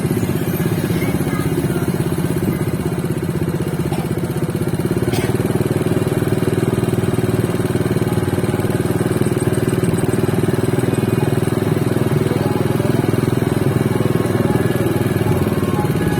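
A small engine running steadily and close up, with an even, rapid firing beat.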